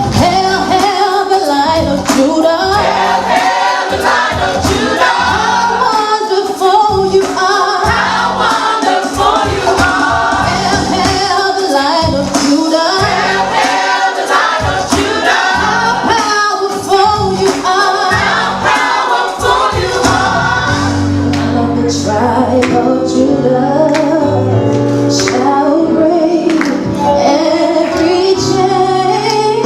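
A gospel choir singing with instrumental backing over a steady beat. About two-thirds of the way through, the beat drops back and long held low notes carry the chords.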